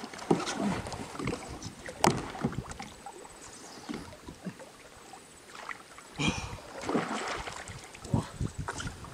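Irregular small knocks, clicks and light water splashes from kayak fishing on calm water, with one sharp click about two seconds in.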